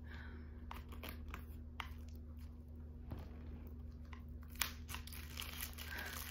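Thin plastic shrink-wrap being picked at and peeled off a tarot card deck, crinkling in scattered small crackles and clicks, with one sharper snap about two-thirds of the way through.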